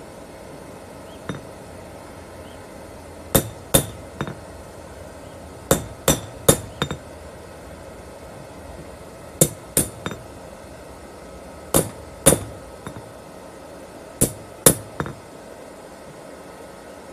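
Hammer blows on hot coil-spring steel resting on a steel anvil block, about fourteen in all, in quick groups of two to four with short pauses between. Each strike rings sharply and metallically. The smith is forging the blade.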